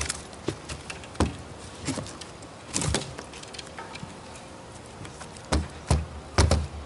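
Scattered knocks and thumps on a bass boat's deck as a just-landed fish is handled and unhooked, with a cluster of heavier thumps near the end.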